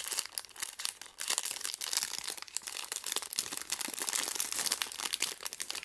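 Crinkly plastic packaging being handled and torn open to get at a small figure: a dense, irregular crackling and rustling.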